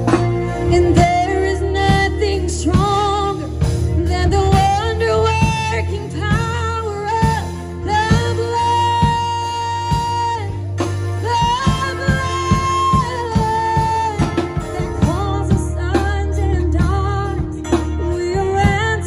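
Live band performing: a woman singing into a microphone over drums, electric bass guitar and keyboard, holding long notes near the middle.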